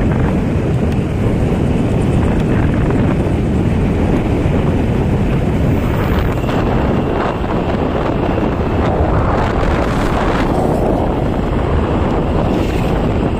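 Wind rushing over the microphone of a moving motorcycle, a loud steady rumble, with the bike's engine running underneath.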